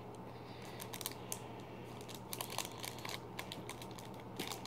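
Faint, scattered small clicks and crinkles of a small packaged item being handled in the fingers.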